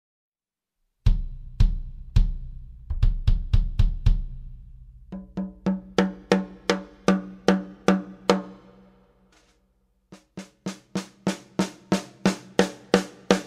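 Brady Jarrah ply drum kit played one drum at a time. First, very deep bass drum hits with a lot of low end, single strokes then a quicker run. Then a tom ringing with a clear pitch for about a dozen strokes, and after a short pause, a run of brighter, sharper drum strokes.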